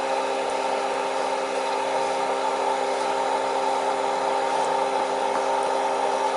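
Steady machine-like whirring hum with several held tones and no change in level.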